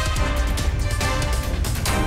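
Background music with a driving beat and heavy bass.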